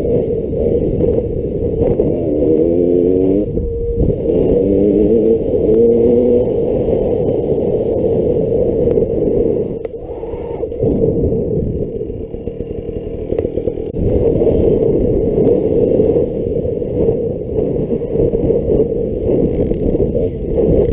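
2018 Beta XTrainer two-stroke dirt bike engine running under way, revving up with rising pitch twice in the first seven seconds, easing off about ten seconds in, then pulling steadily again.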